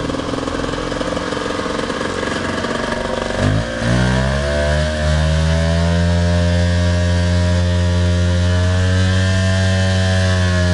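Engine of an Amphicat six-wheeled amphibious ATV, uneven at first, then revving up a little over three seconds in and holding steady at high revs as the machine drives through water.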